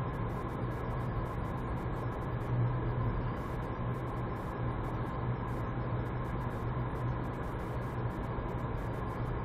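Car cabin noise while cruising steadily at about 50 km/h: a constant low engine and drivetrain hum under even tyre and road noise, heard from inside the car.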